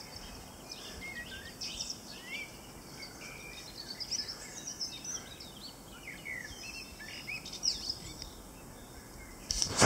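Songbirds chirping and singing: many short, quick calls, some sweeping up or down, over a faint steady background hiss. A loud rustling knock comes just before the end.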